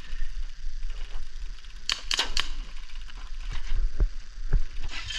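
Airsoft guns firing: a quick group of three sharp shots about two seconds in, then a few scattered single shots and knocks.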